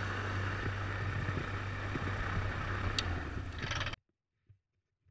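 Gyroplane's engine idling with a steady low throb. A short click comes near three seconds in, and the sound cuts off suddenly about four seconds in.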